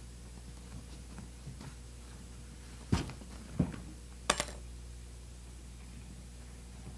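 Hands handling leather upholstery and tufting twine: faint rustling, then three sharp clicks within about a second and a half, the last one bright and ringing, over a low steady hum.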